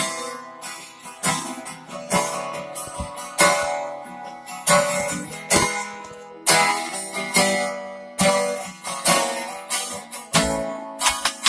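Acoustic guitar strummed in a steady rhythm, a strong chord strum about once a second with lighter strums between.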